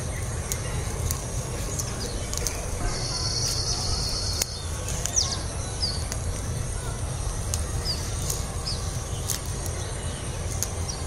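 Leafy greens (saag) being picked by hand, with small sharp snaps, over a steady low rumble on the phone's microphone. Birds give short falling chirps several times, and a steady high buzz sounds for about a second and a half about three seconds in.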